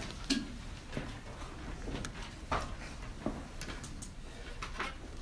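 Room noise between speeches: scattered soft knocks and clicks, about six or seven across a few seconds, over a faint low hum.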